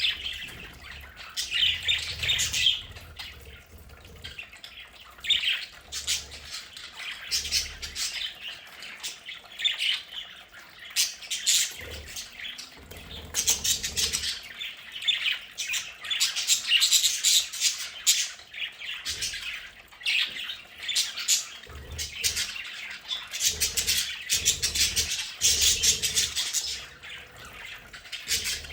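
A flock of budgerigars chattering, chirping and squawking continuously in bouts.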